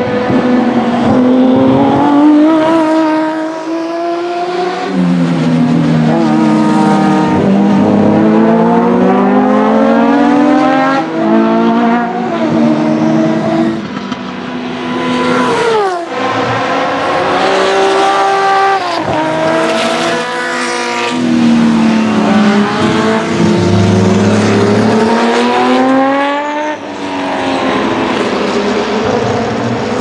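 BMW M1 Procar's 3.5-litre M88 straight-six racing engine driven hard, its pitch climbing again and again as it pulls through the gears, breaking at each shift and dropping sharply on lifts and downshifts.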